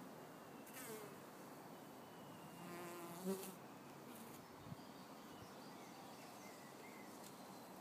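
Honeybees buzzing faintly as they fly about their nest, with a few brief louder buzzes as single bees pass close, about a second in and again around three seconds in.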